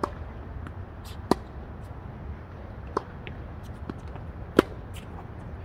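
Tennis rally on a hard court: sharp pops of rackets striking the ball and the ball bouncing, about six in all, the loudest some four and a half seconds in.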